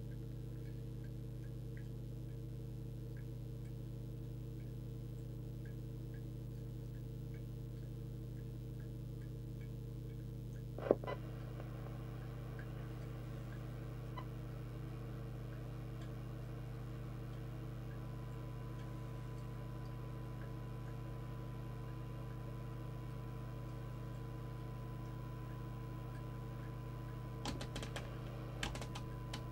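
Steady electrical hum with faint, regular ticking. About eleven seconds in there is a sharp click, after which a faint steady tone near 1 kHz comes in: the signal generator's test tone heard through the CB receiver's audio. A few more clicks come near the end.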